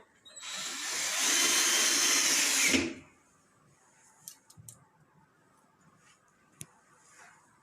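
Power drill-driver driving a screw back into the washing machine's front panel: the motor whirs for about two and a half seconds, rising in pitch and then winding down as it stops. A few faint clicks of handling follow.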